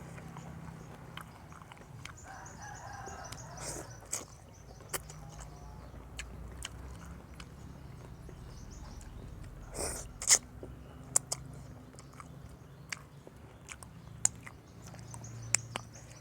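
A person chewing and biting on tam sua with chicken feet, with scattered sharp clicks and a louder pair of clicks about ten seconds in.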